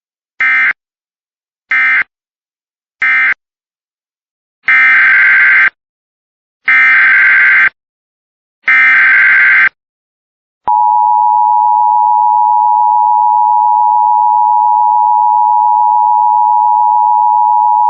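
Emergency Alert System signalling: three short buzzy data bursts (the end-of-message code closing one alert), then three longer data bursts of about a second each (the header opening the next alert). About ten and a half seconds in comes the steady attention tone near 1 kHz, which holds to the end.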